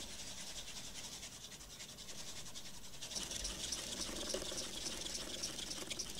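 Small motors of a wall-mounted robotic arm in an art installation, making a rapid, dense high-pitched clicking chatter as the arm moves. The chatter grows louder about three seconds in.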